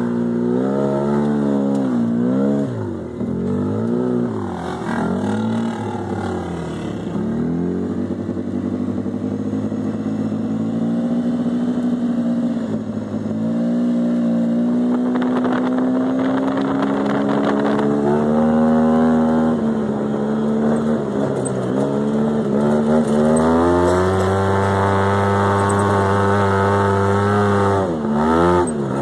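Polaris RZR side-by-side's engine driving on sand, revving up and down in quick succession, then running more steadily with its pitch rising and falling as the throttle changes.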